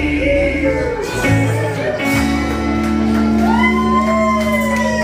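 Live band with electric guitar and bass ringing out the final held chord of a song, the singer holding the last note over it.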